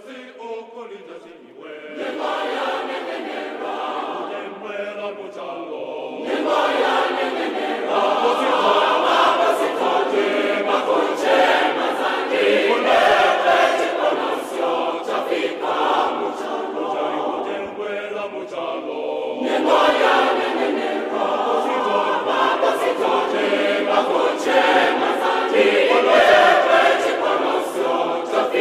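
A choir of voices singing together, quieter at first and growing louder about two seconds in and again a few seconds later.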